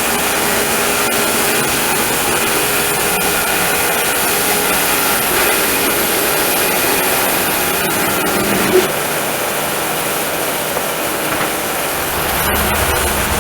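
Homemade sawmill running steadily, its blade cutting through a beetle-kill pine log.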